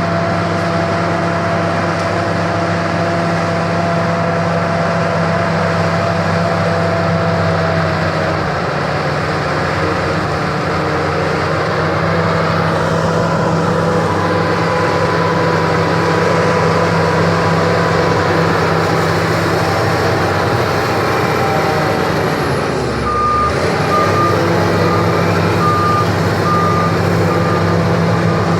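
SEM 816 crawler bulldozer's diesel engine running steadily under work, its pitch shifting briefly about two-thirds of the way through. After that a reverse alarm beeps repeatedly at an even pace until the end.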